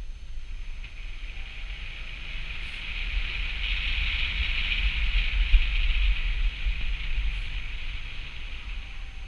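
Car driving on a snow-packed, gravelled road: a steady low wind rumble on the microphone with a hiss of road noise that swells in the middle and eases off again.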